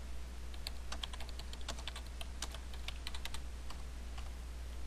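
Computer keyboard typing: a quick run of keystrokes that starts about half a second in and stops about three and a half seconds in, over a steady low hum.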